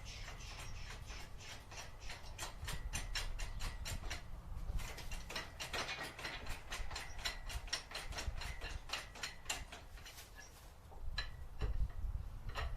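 Rapid, even clicking of a ratchet mechanism, several clicks a second, with a brief pause about four seconds in; it stops near the end and a few knocks follow.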